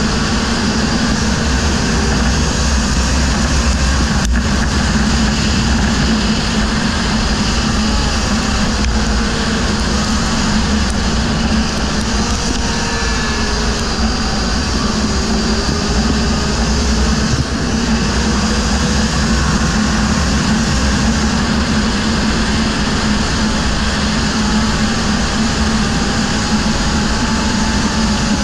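Racing quad's engine running hard and steady at speed, heard from a microphone mounted on the machine, with wind and rumble over it.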